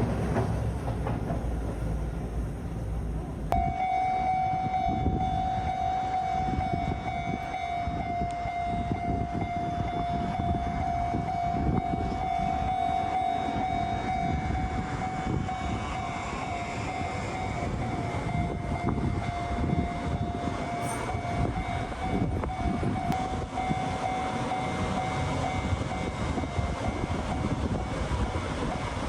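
A train running past with a steady rumble and rail clatter, under a steady ringing tone that fades out near the end. The sound changes abruptly about three and a half seconds in.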